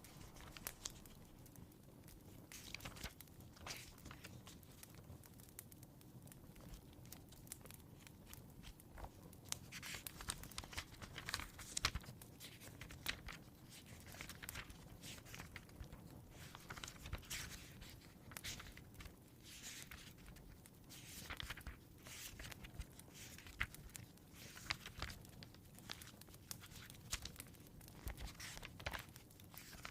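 Fire crackling in a fireplace: irregular snaps and pops over a low, steady rumble, faint throughout.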